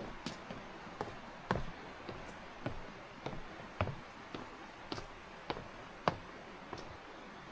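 Footsteps of a hiker walking along a mountain trail, a sharp step about every half second, over a steady background hiss.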